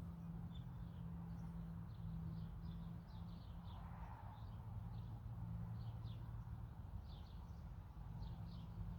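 Small birds chirping in short, high, quick notes, repeated many times, over a low steady background hum.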